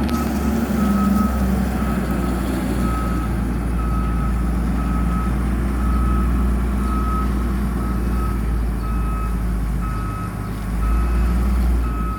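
Excavator travel alarm beeping steadily over the low drone of the excavator's diesel engine.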